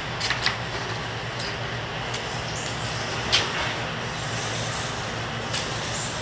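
Paint roller working primer over a rough concrete floor and being dipped into a paint tray, with a few light clicks and knocks, the sharpest about three and a half seconds in, over a steady low hum.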